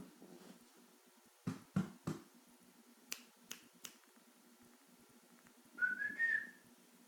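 Three low knocks, then three sharp finger snaps about three seconds in, and a short rising whistle near the end: a person trying to get a sleeping dog's attention.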